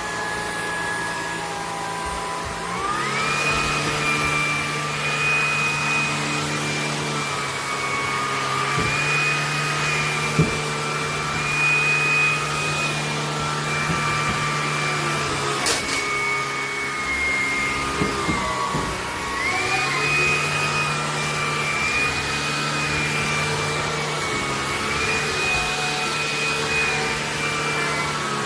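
Shark Stratos cordless stick vacuum running with a steady motor whine. The whine steps up in pitch about three seconds in, drops briefly about two-thirds of the way through and climbs back up. A few short clicks sound along the way.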